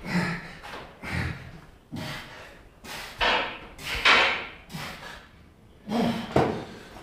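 A person breathing hard and forcefully while exerting, with short noisy exhalations about once a second, some with a low grunt in them. The loudest come a little after three and four seconds in.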